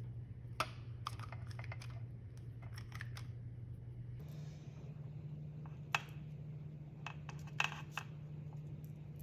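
Scattered light clicks and taps from a spring-loaded metal cookie scoop and hands setting cookie dough balls onto a parchment-lined baking sheet, over a steady low hum.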